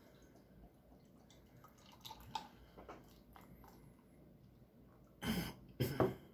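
Beer being poured from a glass bottle into a glass: faint clinks and trickling, then two short loud gushes of liquid near the end.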